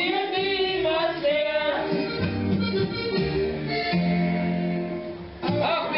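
Accordion-led sing-along music played as a backing track, with a man singing over it into a microphone at first. From about two seconds in, the accordion plays held chords over a bass line alone. The singing comes back just before the end.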